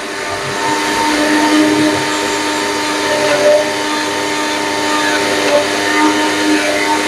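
Electric mixer grinder (Surya Flame) running steadily with its steel jar, lid held down by hand, grinding a dry mix with no water added yet. A steady motor hum with a whine on top.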